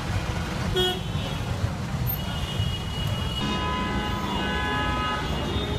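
Street traffic rumbling steadily with vehicle horns honking: a short toot just under a second in, then from about two seconds in several longer horns of different pitches, overlapping one another.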